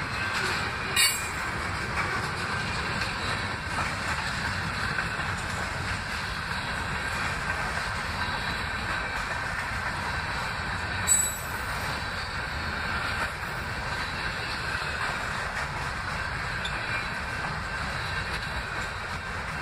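Freight train cars rolling past at a grade crossing: a steady rumble of steel wheels on rail with a thin, steady wheel squeal. Two sharp metallic clanks stand out, about a second in and about eleven seconds in.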